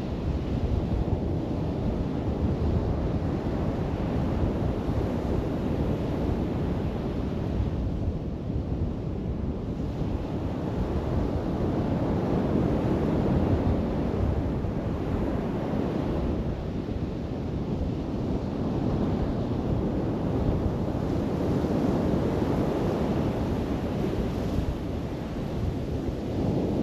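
Ocean surf: waves breaking and washing in as a steady low rush that swells and eases every few seconds, picked up by a GoPro HERO 13's built-in microphone behind a windscreen.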